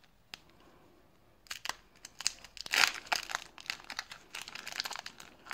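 Foil wrapper of a 1990 Leaf baseball card pack crinkling and tearing as it is pulled open by hand, in irregular crackles that start about one and a half seconds in and peak near three seconds. The packs are tightly sealed, as if super glued, and tough to open.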